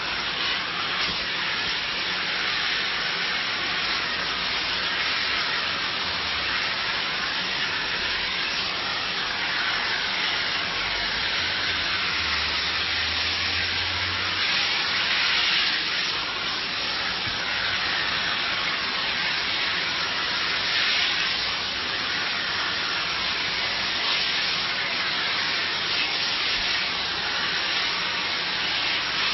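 Steam cleaner lance jetting steam in a steady hiss, swelling a little now and then as it sweeps across a conservatory roof.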